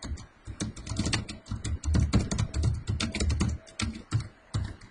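Typing on a computer keyboard: a quick, uneven run of keystrokes, several a second, with a few brief pauses.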